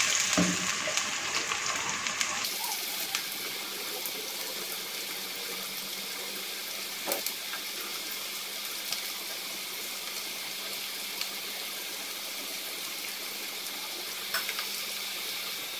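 Sliced onions sizzling steadily in hot oil in a wok, being lightly fried. They are stirred with a slotted spatula in the first two seconds, and a few faint clicks come later.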